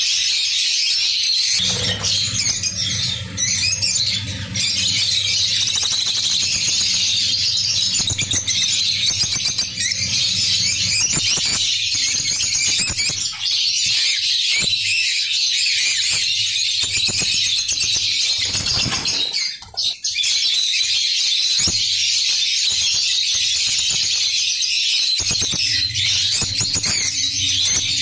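A flock of peach-faced lovebirds in a cage chattering together: a dense, continuous high-pitched chatter with squawks. A low steady hum sits under it for stretches.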